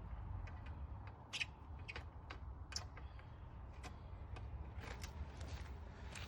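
Scattered light clicks and taps of metal hardware being handled, over a low steady hum: the furnace chimney being bolted on with hex-head bolts.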